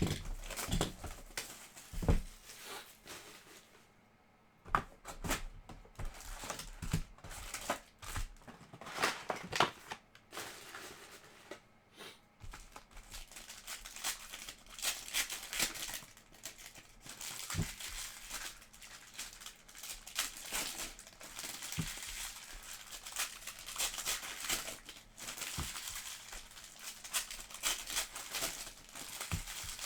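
Plastic wrapping and trading-card pack wrappers crinkling and tearing as the boxes and packs are opened by hand, with scattered clicks and taps. The rustling is busier and more continuous in the second half.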